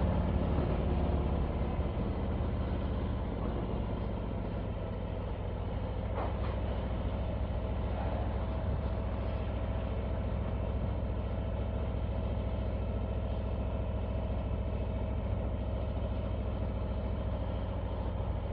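Harley-Davidson touring motorcycle's V-twin engine running steadily at low road speed, heard from the bike itself.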